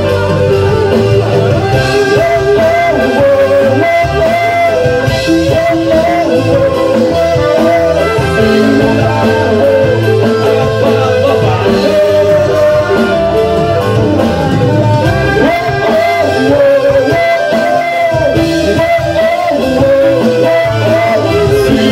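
Live reggae band playing with trombone and trumpet, electric guitar, bass and drums, with a singer's voice over it.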